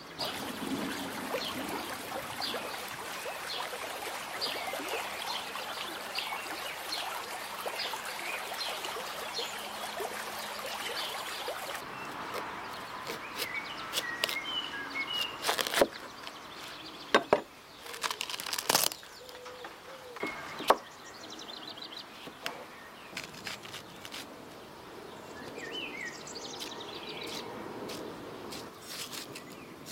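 Salad leaves and chopped vegetables tossed with wooden spoons in a wooden bowl, a dense rustling. Then a large knife cuts through a watermelon, with several sharp cracks as the rind splits and the flesh crunches. Birds chirp faintly throughout.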